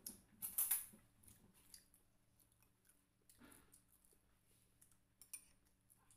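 Eating fried chicken: a crisp crackle of the breaded crust under a second in, then faint chewing and a few small clicks.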